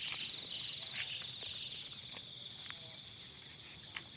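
Steady chorus of insects, a constant high-pitched trilling, with a few faint clicks.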